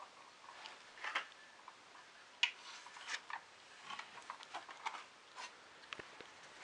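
Irregular light clicks and taps of small plastic printer parts and cable being handled and pushed into place by hand, about a dozen at uneven intervals.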